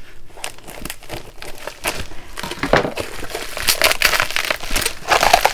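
Plastic bubble wrap crinkling and crackling irregularly as it is squeezed and pulled off a tightly wrapped glass, getting louder in the second half.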